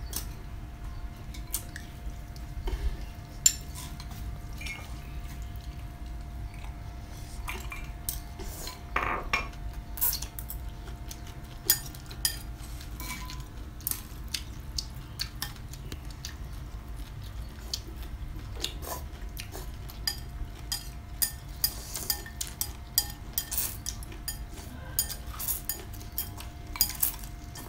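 Chopsticks and spoons clicking and clinking against ceramic bowls while eating rice noodles, in scattered sharp taps that come thicker toward the end, mixed with crunching bites of fresh raw vegetables.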